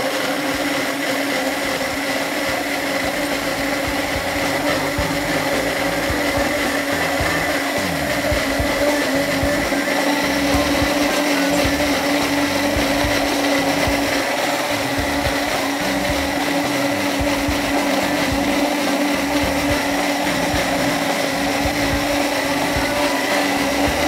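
Cuisinart digital blender running steadily at about speed 7, a loud, even motor whine over the churning of its contents.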